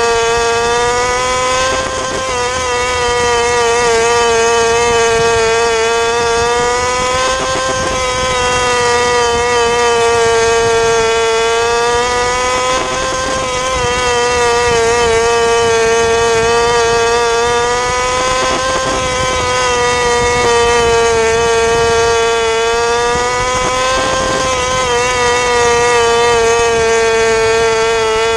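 600cc micro sprint car's motorcycle engine running hard, heard from the cockpit. Its pitch rises and falls about every five to six seconds as the throttle comes off for each turn and back on down each straight, lap after lap.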